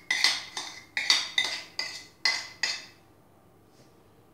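A spoon clinking and scraping against a bowl while scooping out the ricotta and chocolate-chip filling. There is a quick run of clinks, about three a second, that stops about three seconds in.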